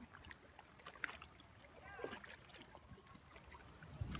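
Near silence from a boat on open water: faint small ticks and knocks, with a faint distant call about two seconds in.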